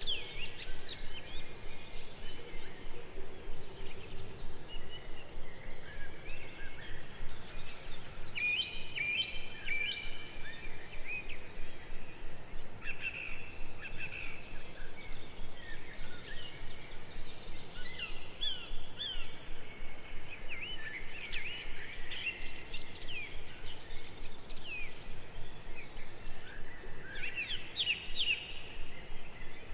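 Small birds chirping and calling repeatedly: quick short chirps, trills and rising and falling notes overlapping one another, over steady background noise.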